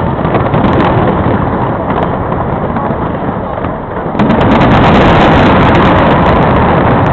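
Fireworks bursting and crackling overhead in a loud, dense run of bangs that gets louder about four seconds in.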